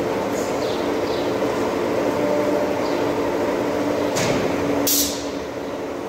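Automatic silage packing machine running: a steady motor hum with several held tones, broken about four and five seconds in by short hisses of compressed air from its pneumatic actuators, after which the running sounds quieter.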